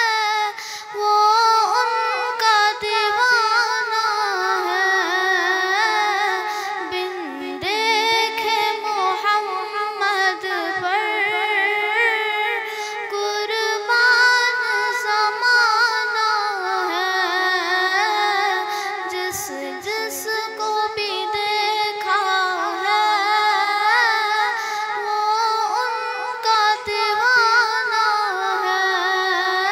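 A girl singing a naat, an Urdu devotional song, solo into a microphone, with long held notes and a wavering, ornamented pitch.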